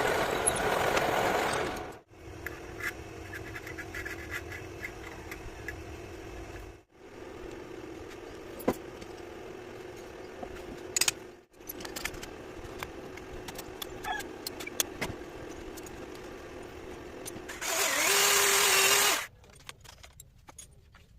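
Metalworking tool sounds in several short clips cut together: a loud steady noise for the first two seconds and again near the end, with quieter scraping and scattered clicks between.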